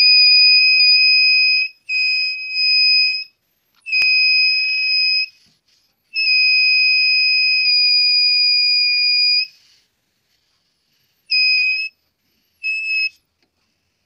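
Small electronic buzzer of a homemade fire-alarm circuit sounding a steady high-pitched tone in about seven on-off bursts, from a half second to three seconds long, ending with two short beeps. It sounds as a match flame is held to the circuit's sensor, setting the alarm off.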